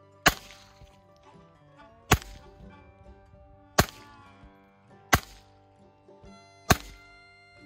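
Five shots from a Smith & Wesson M&P 22 pistol firing .22 rounds, one every second and a half or so, each a sharp crack with a short ringing tail. Background music plays underneath.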